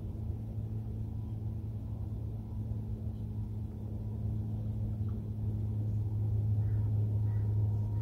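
A low, steady mechanical rumble, like an engine or machine running, that grows slightly louder toward the end.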